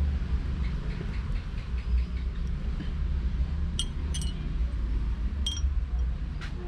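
A few sharp clicks as the small parts of a motorcycle hydraulic brake master cylinder are handled, about four times in the second half, over a low steady rumble.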